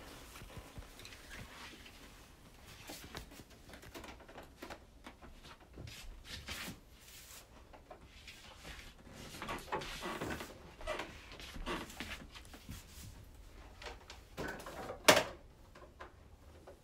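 Handling noises as fabric is shuffled and a portable sewing machine is carried and set up on a wooden desk: rustling, light knocks and clunks, with one sharp knock about fifteen seconds in.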